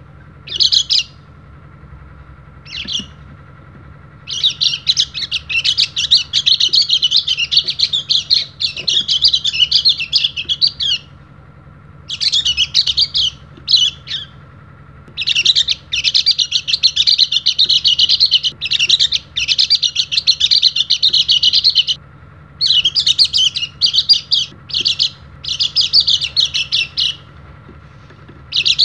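A caged white-eye (pleci) singing in full voice: rapid, high twittering runs, the longest lasting six or seven seconds, broken by pauses and short bursts of chirps.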